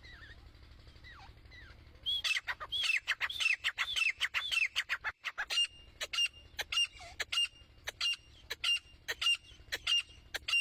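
Female grey francolin (teetar) calling: faint notes at first, then about two seconds in a loud, fast series of arched, falling call notes about three a second, changing midway to shorter, sharper repeated notes about two a second.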